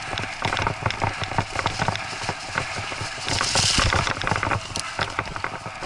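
Bike rattling and jolting over a rough, rutted grass trail, a dense run of small knocks and clicks, with a brief hiss a little past halfway.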